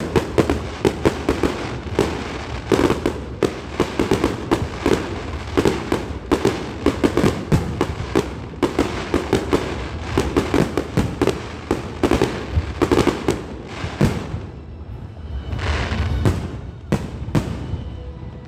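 Fireworks display: a dense, rapid run of bangs and crackles that thins out after about fourteen seconds into scattered pops.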